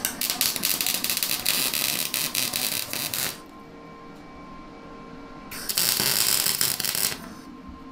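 Wire-feed welder laying two short weld runs on steel, each a fast crackle of the arc: about three seconds, a pause of roughly two seconds, then about a second and a half more.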